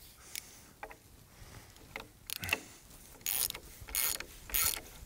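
Socket ratchet wrench driving a 5/8-inch lag bolt up into a wooden beam: a few faint clicks at first, then from about two seconds in regular bursts of ratchet clicking, one burst roughly every half second to second, stroke after stroke.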